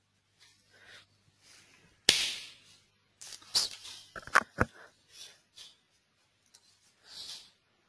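Scattered short clicks and knocks close to the microphone, with a sudden rush of noise about two seconds in that dies away within about half a second, and a cluster of sharp knocks a little later; a faint steady hum runs underneath.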